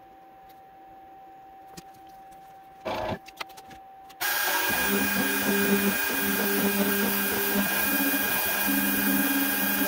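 X-Carve CNC router's spindle switches on about four seconds in and runs steadily at high speed, while the stepper motors sound in short notes that change pitch as they move a V-bit engraving an aluminum dog tag. Before that there is only a faint steady hum and a brief rustling noise.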